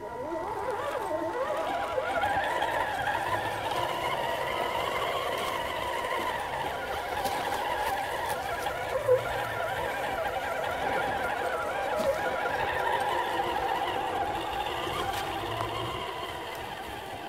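RC scale crawler's electric motor and gears whining as the truck crawls over roots, the pitch rising and falling with the throttle. A single sharp click about nine seconds in.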